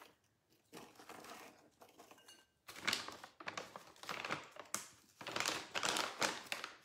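Plastic snack pouch crinkling as it is handled, in a run of irregular crackles that starts about a third of the way in after a quieter, faintly rustling start.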